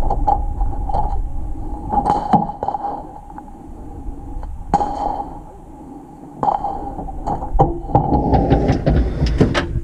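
Clicks and knocks of a Ford pickup's tailgate being unlatched, lowered and handled, then the load bed being reached into, with a cluster of quick clicks near the end. A steady low rumble and a faint steady hum run underneath.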